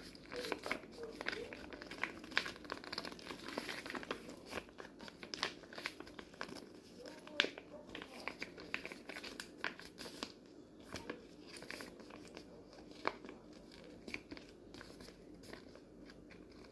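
Kitchen handling sounds: light crinkling and rustling with many small scattered clicks and knocks, busier in the first half.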